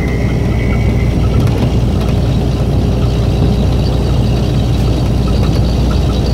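Truck's diesel engine and tyre noise heard from inside the cab while cruising on the highway: a steady low drone.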